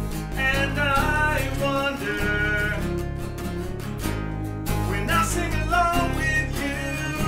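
Acoustic cover band performing: strummed acoustic guitars with a voice singing a melody in two phrases, the second starting about five seconds in.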